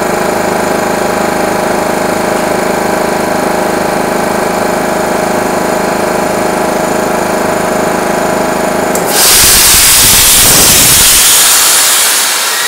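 Nardi Pacific E27 three-stage, three-piston high-pressure air compressor running steadily under load as the pressure climbs toward its 200 bar stop. About nine seconds in, it reaches 200 bar and cuts out, blowing air off with a loud hiss while the electric motor runs down.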